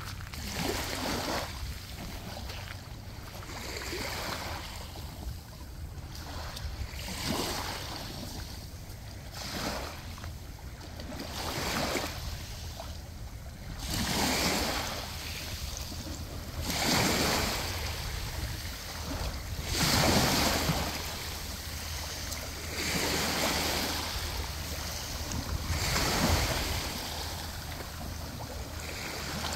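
Small seawater waves washing up onto a sandy, pebbly shore and running back. Each wash swells and fades every two to three seconds, the loudest coming in the second half.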